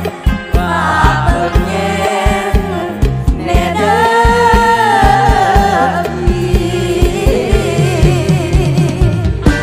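Mor lam music in the lam phloen style: several singers singing together over a live band with a steady drum beat.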